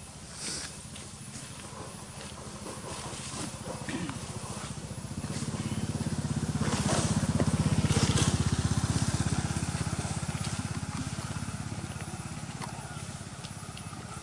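A passing motor vehicle's engine: a low drone that swells to its loudest about eight seconds in and then fades away.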